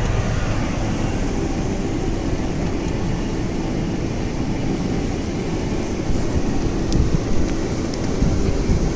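Strong blizzard wind blowing steadily, with gusts buffeting the microphone from about six seconds in.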